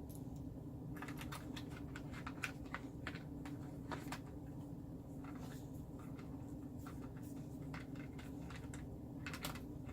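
Light irregular clicks and taps of hard plastic chair parts being handled and fitted together, clustered in the first half and again near the end, over a steady low hum.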